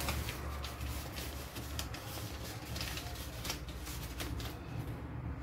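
Wallpaper crinkling and rustling as it is handled along a counter edge, in a string of short crackles. A steady low hum runs underneath.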